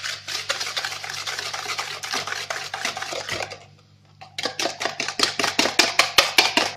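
Metal wire whisk beating eggs and sugar in a plastic bowl: a fast, rhythmic clatter of the wires against the bowl, several strokes a second. It stops briefly about four seconds in, then resumes louder.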